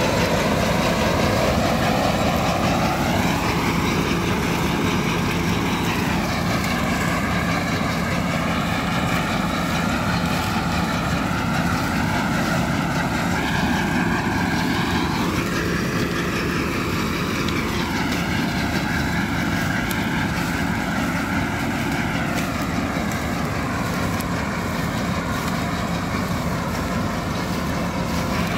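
IMT 577 DV tractor's diesel engine running under load as it pulls a SIP Tornado 80 trailed corn picker through standing corn. The picker's machinery runs with it. The result is a steady drone with a whine that rises and falls in pitch a few times.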